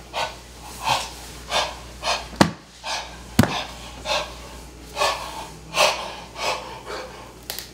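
A man's heavy, rapid panting: quick, regular breaths, more than one a second. Two sharp knocks come about two and a half and three and a half seconds in.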